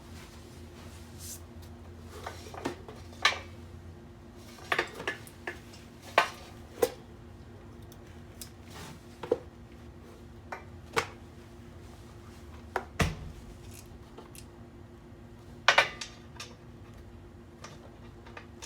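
Metal tools and parts clinking and knocking as they are handled, in about a dozen irregular sharp strikes, the loudest two close together near the end. A steady faint hum runs underneath.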